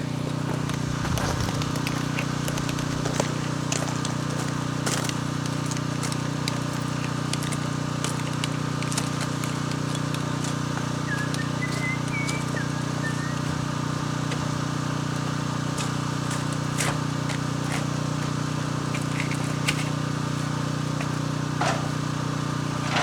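A steady low motor hum, with scattered sharp knocks and clicks over it and a few short high chirps about halfway through.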